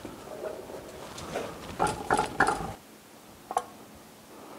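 Metal clanks from an outboard lower unit being swung over on its rotating repair stand: three sharp ringing knocks close together about two seconds in, then a single lighter click a second later.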